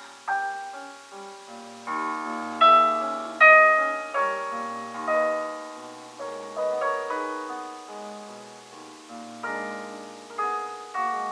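Grand piano being played: a piece of notes and chords struck about once a second, each ringing and fading away, loudest a few seconds in.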